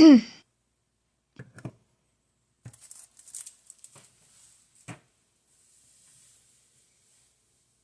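Grilled cheese sandwich frying in a pan: a faint high sizzle, with a few light clicks and knocks, the sharpest about five seconds in.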